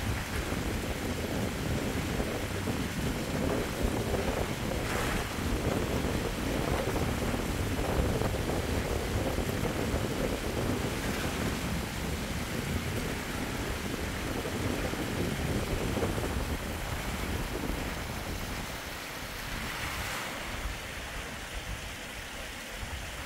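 Stormy wind blowing hard over the microphone, a steady rush of noise with a heavy low buffeting, easing a little in the last few seconds.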